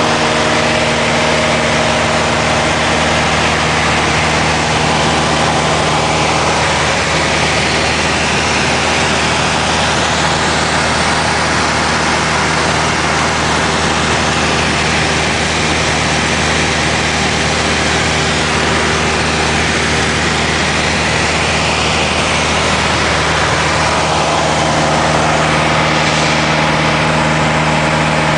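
Light airplane's piston engine and propeller droning steadily in cruise, heard from inside the cabin along with a constant rush of airflow noise.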